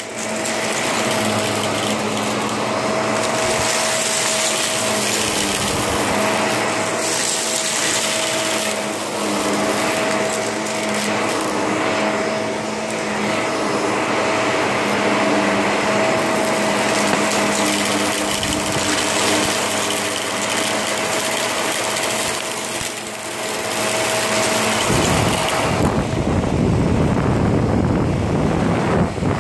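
Vacuum cleaner running, a steady motor whine over rushing air; about 25 seconds in, a deeper rumble comes in and the whine drops away.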